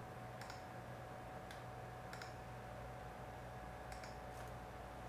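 Several faint computer mouse clicks, some in quick pairs, over a low steady background hum.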